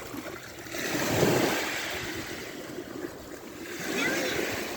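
Sea waves washing up on the beach, one swell breaking about a second in and another near the end.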